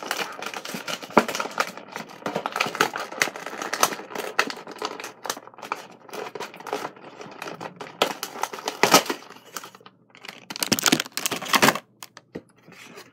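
Cardboard packaging being torn open and handled, a steady run of crinkling and irregular rips and snaps, with a louder stretch of tearing near the end before it quiets.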